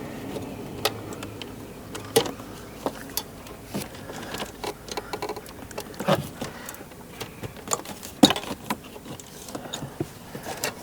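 Irregular plastic clicks and rattles as wiring harness connectors are unclipped from the back of a Mazda3's center display and CMU unit, with a few sharper snaps, the loudest about eight seconds in.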